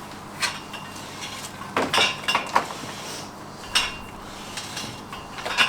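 Steel bar knocking and clinking against the head of a steel ground screw as it is turned in by hand: about six sharp metallic clinks at irregular intervals, each with a short ring.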